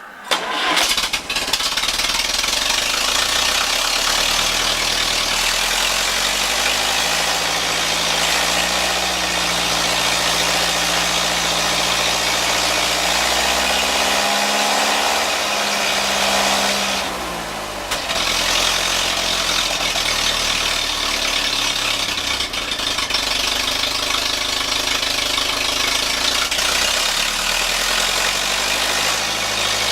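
Ferguson TEA-20 tractor's four-cylinder engine starting about half a second in, then running steadily at idle, with a brief sag in engine speed and loudness about 17 seconds in.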